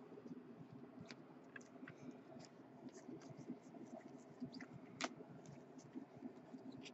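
Faint, irregular clicks and scraping of Bowman Chrome baseball cards being flipped one by one through a stack in the hands, with one sharper click about five seconds in.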